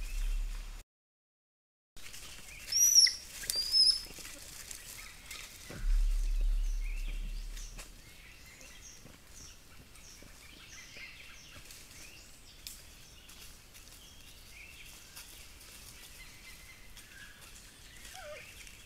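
Forest birds calling: two loud, arching high chirps about three seconds in, then a long run of short, repeated high calls over faint chirping. A low rumble comes about six seconds in, and a lower falling call near the end.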